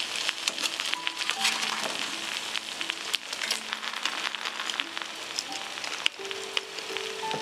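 Food sizzling and crackling in a frying pan, under background music of slow, held melody notes.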